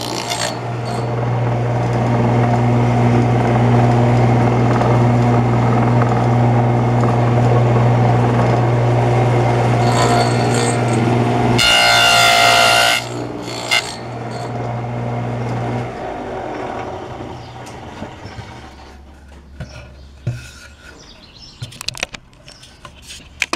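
Table saw with a dado blade running steadily, cutting a finger-joint slot across the end of a board about twelve seconds in. The saw is then switched off and winds down. A few sharp knocks of wood being handled come near the end.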